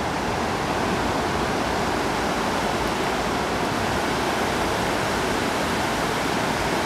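Steady, even rush of a fast-running river spilling over a dam wall.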